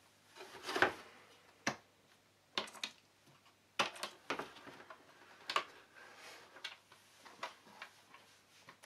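A hard plastic carry case being handled and opened: a scattering of sharp, irregular clicks and knocks as its latches snap open and the lid is swung back.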